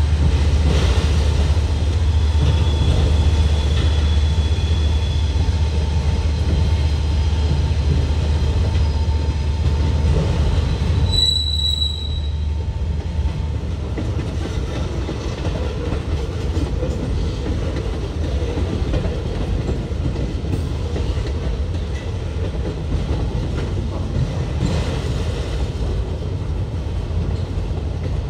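Freight train passing: a heavy diesel locomotive rumble for the first ten seconds or so, then the rolling cars. Thin high wheel-flange squeals sound through it, with one sharp squeal about eleven seconds in.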